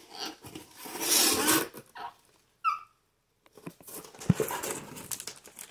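Packaging being handled and pulled open: rustling and rubbing, loudest about a second in, with a short high squeak about two and a half seconds in and a thump just after four seconds.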